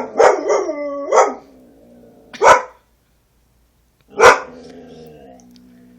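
A dog barking and rooing: three sharp barks about two seconds apart, the first and last each running on into a drawn-out, howling 'roo', the last one fading quieter.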